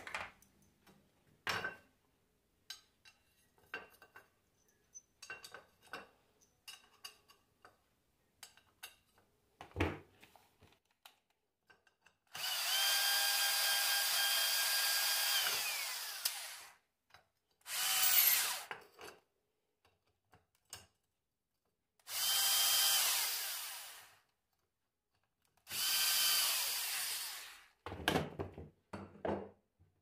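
A power tool runs in four bursts: a long one of about four seconds, then three shorter ones. Its pitch falls as it winds down at the end of each. Before it come light clicks and knocks of metal parts being handled on the bench.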